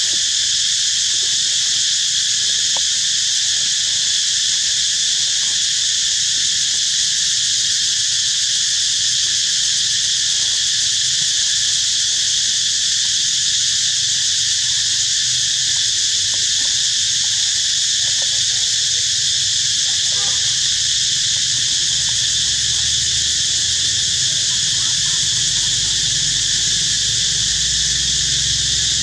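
Dense insect chorus: a loud, steady, high-pitched buzz that never changes.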